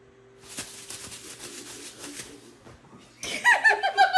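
A person laughing: breathy, held-in snickering at first, then a loud, high-pitched rapid giggle from about three seconds in.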